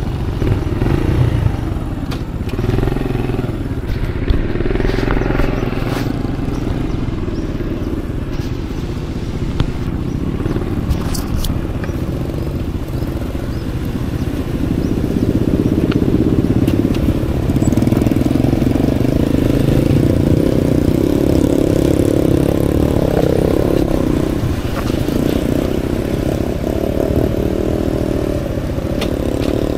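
Aveta Ranger Max Explorer motorcycle engine running as it is ridden off-road. The engine note shifts in pitch and gets louder about halfway through.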